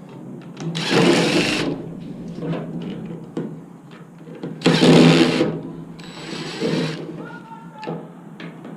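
Power drill running in two short bursts, about a second in and again about five seconds in, with lighter clatter between.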